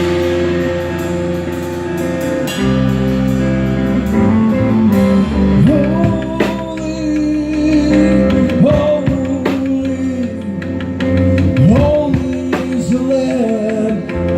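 Band playing a song on guitar, bass guitar and drum kit, with a singer's voice coming in about five seconds in.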